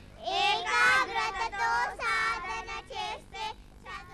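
A group of children singing a song together. The singing grows fainter in the second half and fades out about three and a half seconds in.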